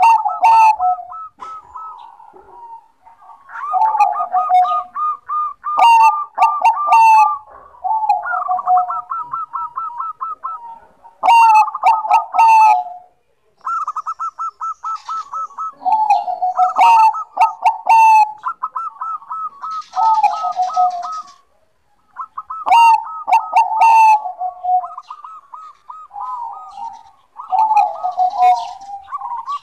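Bangkok-bred zebra dove (perkutut) singing: phrase after phrase of rapid staccato cooing notes, with short pauses between phrases and sharp high ticks at the start of many of them.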